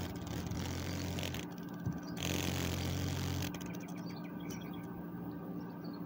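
Male superb dog day cicada held between fingers, buzzing in a distress call: a rapid pulsing buzz that stops about three and a half seconds in.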